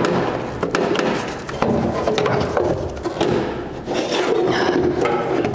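Rummaging and handling of small parts: a quick run of clicks and knocks over rustling and scraping, with no pause.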